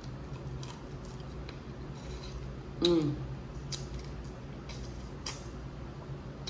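Sharp clicks and snaps of Dungeness crab shell being cracked and picked apart while eating, with a short hum from the eater about three seconds in.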